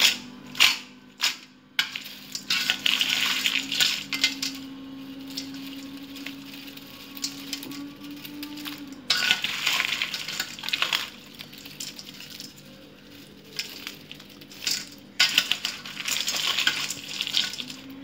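Crisp deep-fried cauliflower pieces clattering in a stainless-steel colander, with sharp rattles as the colander is shaken in the first two seconds and a wire spider skimmer knocking against the steel. Several stretches of crackling hiss from the hot, oil-dripping pieces.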